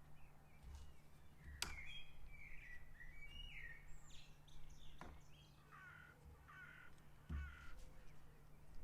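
Faint birdsong and bird calls outdoors, with a run of three repeated calls in the second half. A couple of sharp clicks and a low thump near the end are heard as well.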